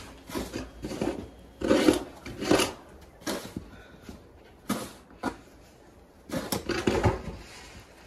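Hand snow shovel digging into deep snow: a run of short crunching scrapes as the blade bites in and lifts the snow, at irregular intervals, the loudest about two seconds in.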